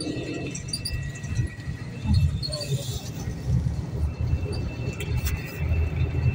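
Double-decker coach driving at speed, heard from inside the passenger cabin: a steady low rumble of engine and road with uneven swells, and a faint steady high tone above it.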